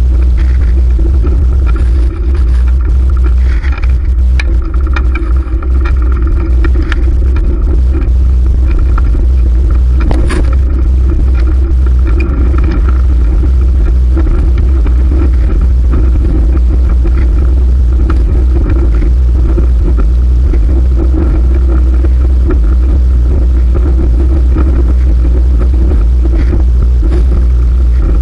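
Heavy, steady wind rumble on the microphone with tyre and road noise while riding a fixed-gear bicycle, with a few clicks and scrapes in the first dozen seconds.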